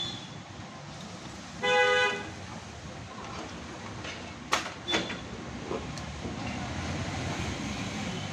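A vehicle horn honks once, briefly, about two seconds in, over steady background noise. Two sharp clicks follow a few seconds later.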